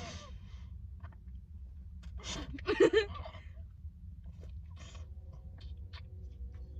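Mouth noises of someone biting into a squeezable jelly fruit cup and sucking the jelly out: short wet slurps and smacks, loudest about three seconds in, with small clicks between. A steady low hum runs underneath.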